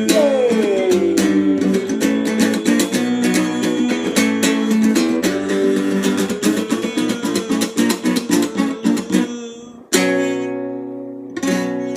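Strummed acoustic guitar playing a song's outro, with steady strumming that stops about nine and a half seconds in. Then two last chords are struck and left to ring out.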